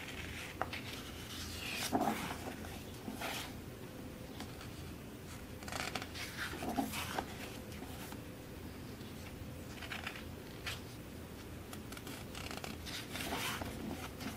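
Pages of a glossy photobook being turned and handled: a series of short papery rustles and swishes as fingers slide over and flip the pages.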